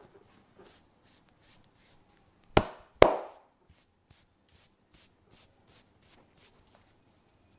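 Massage hands rubbing over skin in quick, even strokes, about three a second, broken about two and a half seconds in by two loud sharp smacks half a second apart.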